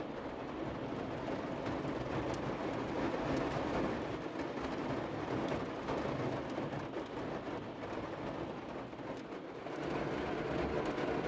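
Torrential rain drumming on the roof and body of a small car, heard from inside the cabin as a steady rushing noise that grows a little louder near the end.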